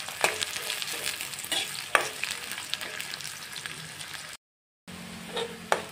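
Sliced onions and bay leaves frying in hot mustard oil in a metal kadai, a steady sizzle with scraping clicks from a metal spatula stirring against the pan. The sound drops out for about half a second near the end.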